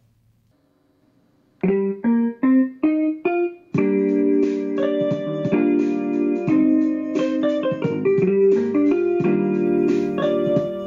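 Music: after about a second and a half of near silence, five short separate notes climb in pitch, then a fuller tune with held chords carries on.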